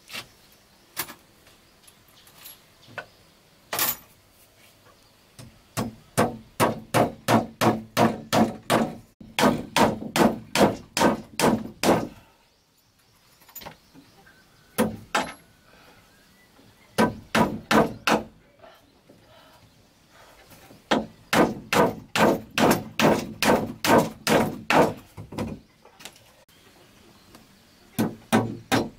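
Hammer blows on wooden slats laid across a bamboo frame, struck in steady runs of about three a second, with short pauses between the runs.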